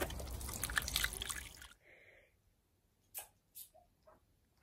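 Jet of water from a garden-hose spray nozzle splattering against an Alaskan malamute's mouth as the dog bites and laps at the stream, a busy patter of drips and splashes. It cuts off abruptly about a second and a half in, leaving near quiet with a few faint ticks.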